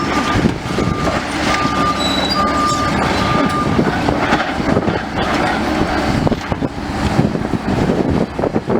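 Excavator demolishing a building: a steady din of crunching and clattering debris with the machine's engine running underneath. A reversing alarm beeps about once a second and stops about three and a half seconds in.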